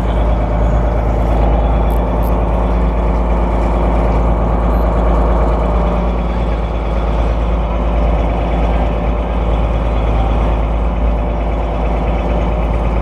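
Fishing boat's engine running steadily at idle, a constant deep drone with no change in pitch.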